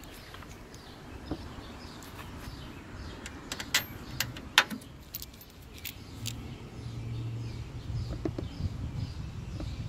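Metal parts and tools being handled under the hood: scattered sharp metallic clinks, the loudest two about three and a half and four and a half seconds in. A low steady hum comes in over the last few seconds.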